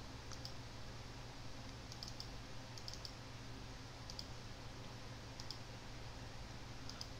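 Computer mouse clicks, often in quick pairs, coming every second or so, over a faint steady low hum.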